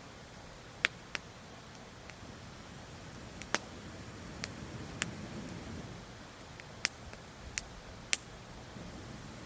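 Wood fire crackling: sharp pops and snaps at uneven intervals, about eight in all, over a steady low hiss.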